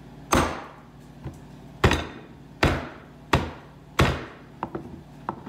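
Large Coolina knife chopping into a frozen rack of ribs on a wooden cutting board: five hard chops within about four seconds, coming closer together toward the end, with a few lighter taps between.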